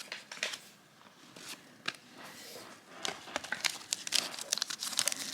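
Baseball cards being handled with light clicks and slides, then crinkly wrapper handling starting about three seconds in and getting louder.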